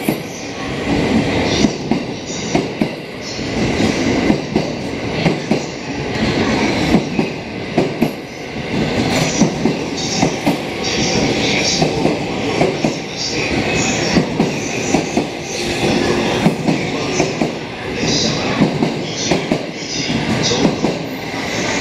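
285 series sleeper electric multiple unit pulling out and passing close by, its wheels clattering over the rail joints in a continuous run of clicks under a steady rumble.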